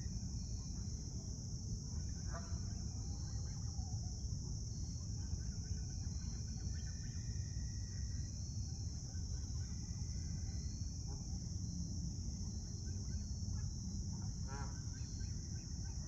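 Canada geese giving short honks, once about two seconds in and again near the end, over a steady low outdoor rumble and a steady high hiss.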